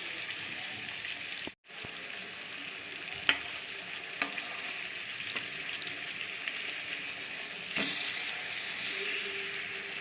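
Marinated fish pieces sizzling in oil in a kadai over a low flame, a steady frying hiss with a few sharp taps. The sound cuts out for a moment about a second and a half in.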